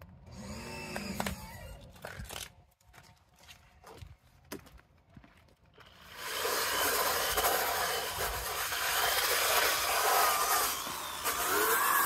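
A drill spinning a round scrub brush against a wet rubber car floor mat: a steady whirring scrub that starts about halfway through and carries on.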